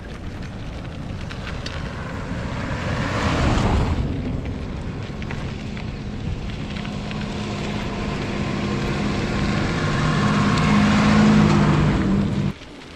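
Motorcycle riding on the road: the engine runs with a steady hum under the rush of wind and road. The rushing swells about three to four seconds in, and the engine note grows louder toward the end before the sound cuts off suddenly.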